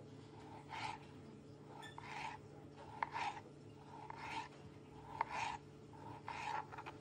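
Cutco cheese knife slicing through a cheese-filled pepperoni stick on a plastic cutting board: about six short cutting strokes, roughly one a second, with a sharp click now and then.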